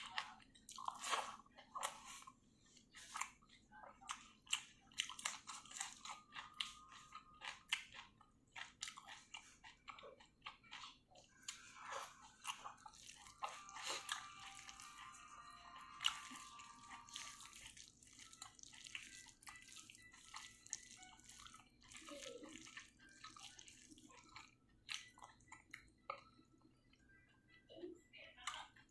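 Close-microphone chewing and biting of someone eating pork and ghugni with rice: many short, irregular wet mouth clicks and crunches.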